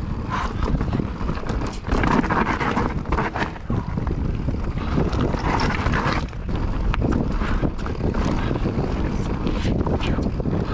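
Mountain bike riding down a dirt and gravel trail: tyres rumbling over the ground under heavy wind noise on the action camera's microphone, with frequent clicks and knocks from the bike over rough ground.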